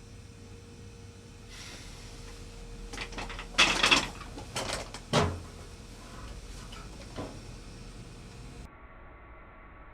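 A few knocks and clatters of objects being handled, the loudest cluster about three and a half seconds in, followed by a dull thump about five seconds in and a lighter knock a couple of seconds later.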